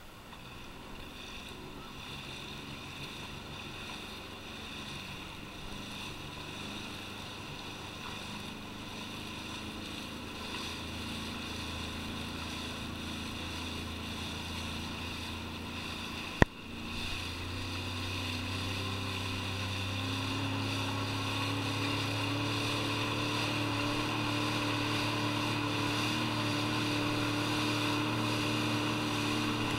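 Sea-Doo personal watercraft engine running steadily. It grows louder and rises in pitch about two-thirds of the way through as the craft speeds up. A single sharp click comes just before the rise.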